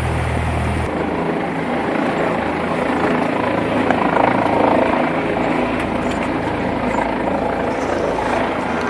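Steady drone of a Cessna 172's propeller engine running on the ground, heard from inside the cabin. Its low hum changes abruptly about a second in.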